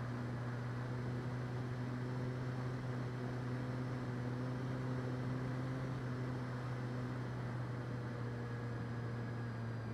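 Onboard sound of an E-flite Clipped Wing Cub RC plane's electric motor and propeller in flight: a steady low drone over a hiss of rushing air, its pitch dipping slightly near the end.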